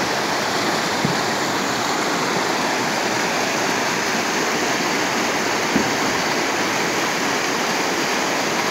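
Shallow river water rushing steadily over and between boulders in small rapids, with two brief low thumps, one about a second in and one near six seconds.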